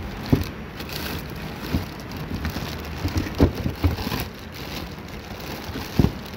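Clear plastic bags rustling and crinkling as roof crossbars are handled in a cardboard box, with several dull knocks, the loudest just before the end.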